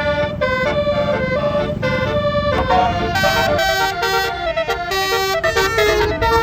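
A bus's multi-tone telolet horn of the 'basuri' kind playing a fast melody, one horn note stepping to the next every few tenths of a second. Under it is a low rumble that thins out about halfway through.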